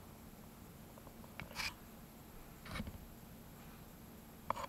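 Quiet room with two short, faint rustles of hands handling a dried luffa sponge gourd, and a small click near the end.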